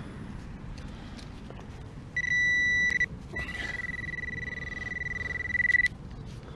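Metal detector sounding a steady high-pitched beep over buried metal: a short beep of under a second, then a longer one of about two and a half seconds that grows louder before cutting off.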